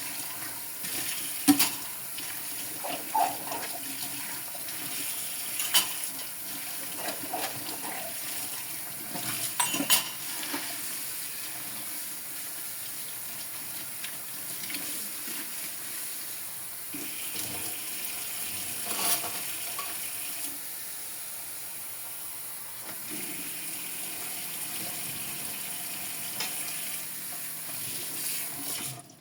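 Tap water running steadily into a sink during dishwashing, with occasional sharp clinks and knocks of dishes and cutlery.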